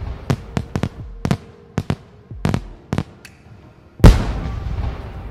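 Fireworks display: aerial shells bursting in a quick, irregular string of sharp bangs. About four seconds in comes a much louder boom, followed by a long rumbling echo that fades away.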